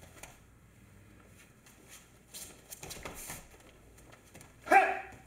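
Martial arts uniforms rustling, with soft knocks on the mat as the partner is thrown, about halfway through. Near the end comes a short, loud kiai shout as the jump-and-stomp finish to the body is delivered.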